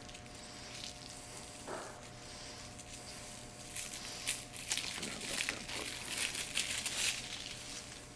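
Paper rustling and crinkling as cards and papers are handled, a run of crisp rustles that grows loudest from about four to seven seconds in.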